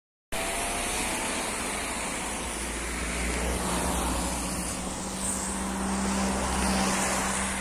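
Road traffic on a wet road: tyres hissing and car engines running, with a nearby engine's steady hum coming in about three seconds in.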